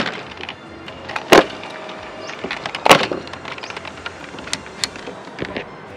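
Hard plastic parts of a Giant Saver transforming robot toy being pushed and snapped together by hand. There are two loud snaps, about a second and a half in and about three seconds in, with lighter clicks and rattles of plastic between them.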